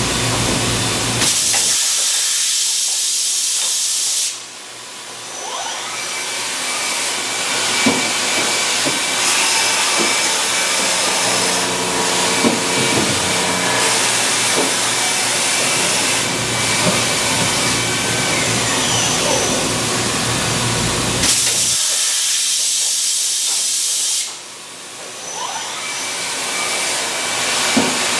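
Steady, loud hissing noise of a machine shop, with faint steady tones and a few light clicks. Twice the low rumble drops away and the hiss turns brighter and thinner: once about a second in and again near the end.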